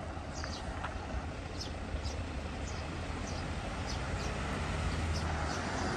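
Road traffic: a container truck's diesel engine rumbling low and growing steadily louder as the truck approaches, with faint short high chirps above it.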